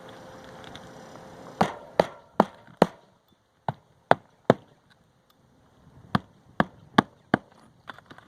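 AJC 17 oz magnetic roofing hatchet hammering hand nails through asphalt shingles: sharp strikes in quick runs of three or four, about two or three a second, a pause between runs as each nail is driven home, then two light taps near the end.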